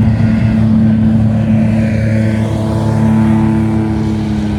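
A motor vehicle's engine running steadily close by, a low even hum that eases off slightly near the end.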